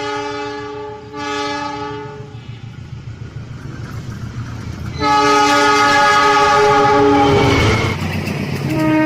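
Diesel locomotive's multi-tone air horn: two short blasts, then a rising rumble of the approaching train, then a long loud blast that sags in pitch as it ends, and another blast starting near the end.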